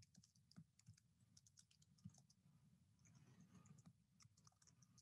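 Near silence: room tone with a few faint computer clicks, a small cluster of them about three to four seconds in.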